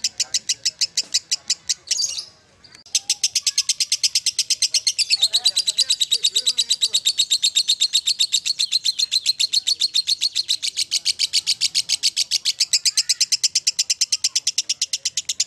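Fischer's lovebird singing a long, rapid chattering trill of evenly repeated high chirps, the continuous 'ngekek' song, with a short break about two seconds in before it carries on unbroken.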